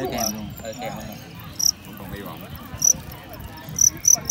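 Male fighting cricket chirping: a few widely spaced chirps, then a quicker run of chirps near the end. Its opponent has just run from the fight, and a winning cricket typically sings like this.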